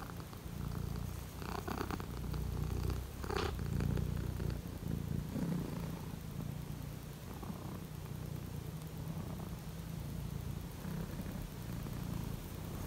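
Domestic cat purring close up as it is stroked: a steady, pulsing low rumble.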